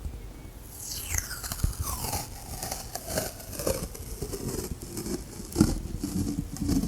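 Close-miked ASMR handling of plastic and sticky tape: crinkling and crackling, with a squeal that falls steadily in pitch from about one to three seconds in, then scattered taps, the loudest about five and a half seconds in.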